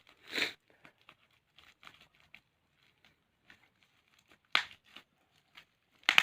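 Packaging of a wireless clip-on microphone being handled and pulled at by hand: scattered crinkling and tearing rustles with small clicks, louder bursts about half a second in, about four and a half seconds in and several near the end.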